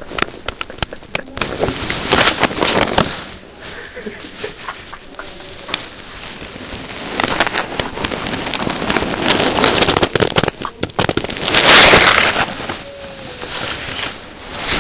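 Two young men laughing hard at length, in irregular loud, crackly bursts, the loudest about twelve seconds in.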